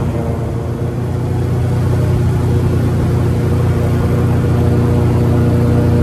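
Airboat engine and caged propeller running at speed: a loud, steady drone with a strong low hum.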